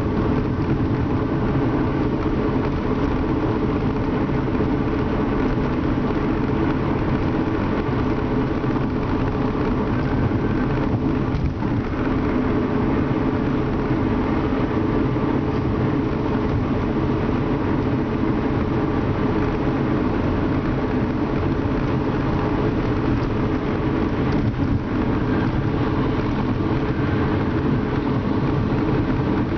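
Steady engine and road noise inside a car cruising at speed, an even roar without changes.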